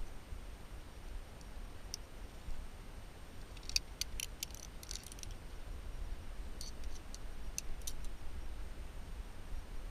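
Metal clinks of a climbing quickdraw's carabiners being handled at a bolt hanger: a quick run of sharp clicks a few seconds in, and a second run a few seconds later.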